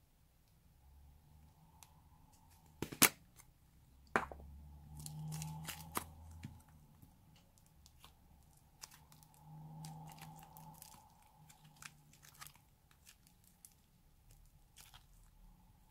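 Clay slime being stretched, folded and pressed by hand on a metal tray: soft sticky crackling and small pops, with two sharp clicks about three and four seconds in, the first the loudest.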